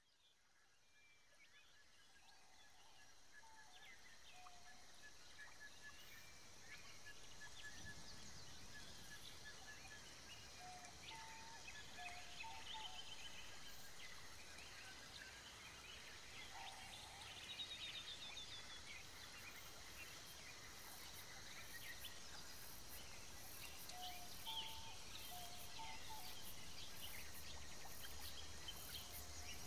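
Faint garden ambience with scattered short bird chirps. About two-thirds of the way in, a regular insect chirping of about two high ticks a second begins.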